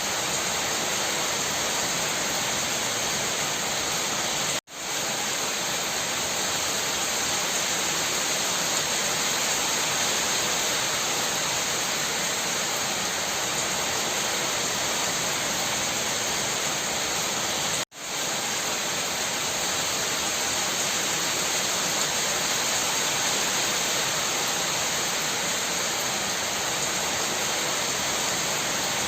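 Rain shower falling steadily, an even hiss of water. The sound cuts out abruptly twice, about five seconds in and again near eighteen seconds, and swells straight back each time.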